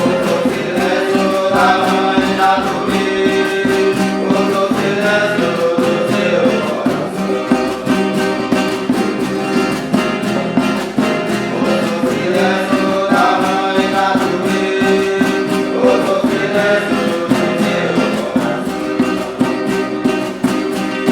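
Huni Kuin chant sung in voices over a strummed acoustic guitar. The sung melodic phrase repeats about halfway through.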